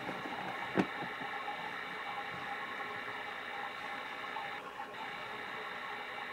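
Steady machine-like hum throughout, with one soft knock about a second in and a brief faint rustle near the five-second mark as the leather handbag is handled.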